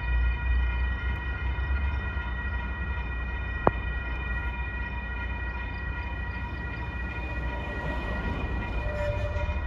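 Railroad grade-crossing warning signal sounding a steady high electronic tone while a train approaches, over a low rumble. One sharp click about a third of the way in.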